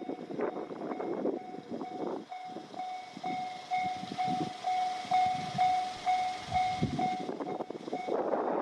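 Japanese level crossing warning bell ringing, an electronic ding repeating about two to three times a second, over the rumble and knocking of a train passing.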